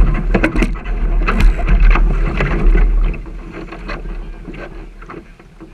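Wind buffeting the action camera's microphone aboard a sailing dinghy under way, with water slapping the hull and many sharp knocks. It is loud for about the first three seconds, then quieter.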